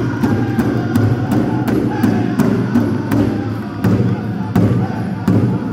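Pow-wow drum group: a large powwow drum struck in a steady beat, about three beats a second, with the singers chanting over it.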